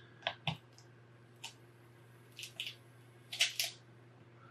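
A pry tool levering a glued-in LeapPad 3 battery free from its adhesive strips: a run of short scrapes and crackles, the loudest pair about three and a half seconds in.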